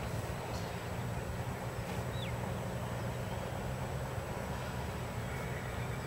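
Two racehorses trotting on a sand training track, their hoofbeats soft and indistinct under a steady low rumble.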